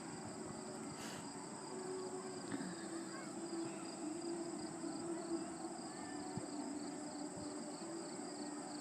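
Insects chirring steadily in the brush, one chorus pulsing in a regular rhythm, with a low steady hum underneath.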